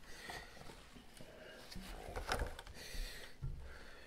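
Quiet room with faint handling sounds: scattered soft rustles and small clicks, a few slightly louder ones between about two and three and a half seconds in.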